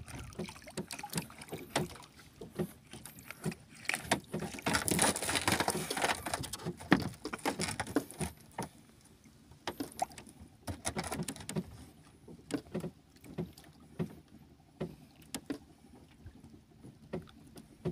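Water lapping and splashing against the hull of a small outrigger boat, with scattered light knocks and clicks. A louder stretch of splashing noise comes from about four to seven seconds in.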